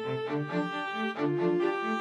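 Background music on bowed string instruments: a long held note over a moving lower line.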